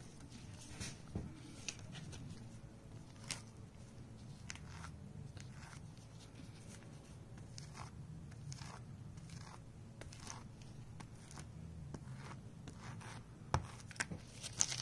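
Small hand brayer rolling over an inked linoleum block, the sticky relief ink giving a faint crackling with scattered short clicks, over a low steady hum.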